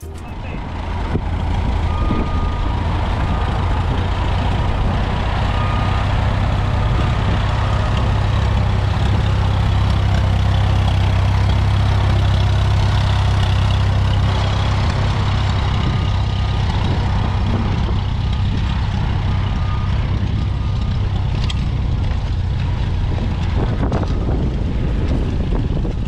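Vintage steel-wheeled tractor engine running steadily with a deep, even hum.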